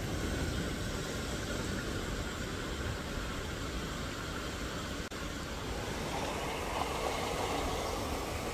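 Steady outdoor background noise with no distinct events, with a brief dropout about five seconds in.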